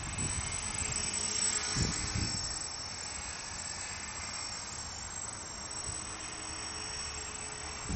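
Thin high whine of a CopterX 450 PRO electric RC helicopter in flight at a distance: its 3550kv brushless motor and belt-driven rotors. Wind rumbles on the microphone, strongest about two seconds in.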